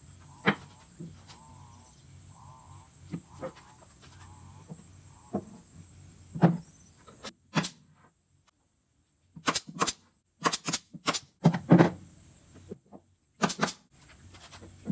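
A series of sharp knocks and clicks, a few spaced apart at first and then coming in quick clusters in the second half, over a faint steady high whine that stops about two seconds before the end.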